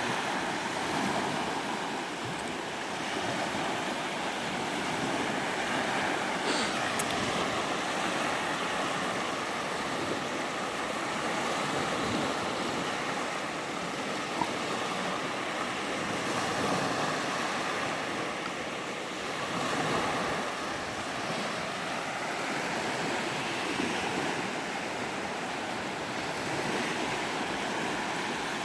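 Sea waves breaking and washing in, a continuous rush of surf that swells and eases every few seconds.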